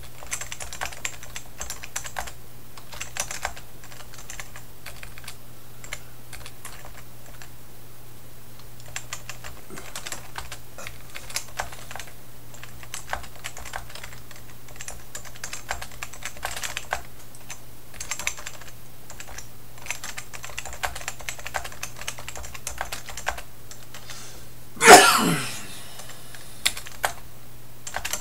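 Typing on a Key Tronic Ergoforce KT2001 rubber-dome keyboard: an irregular, quick run of key clicks. Near the end, one brief loud sound that falls in pitch.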